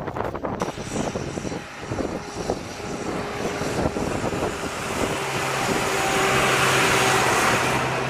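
Tractor with a front snowplough blade driving past below, its engine drone swelling through the second half and loudest just before the end, with a rushing hiss over it. Gusts of wind buffet the microphone until the engine takes over.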